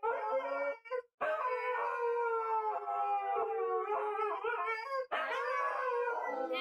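Two Siberian huskies howling together, a 'song' of long held, overlapping howls that break off briefly about a second in and again about five seconds in.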